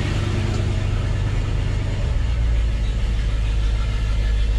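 1969 Ford F-350's engine idling steadily, with no belt squeal from the freshly fitted dual-belt alternator. The low hum shifts slightly about two seconds in.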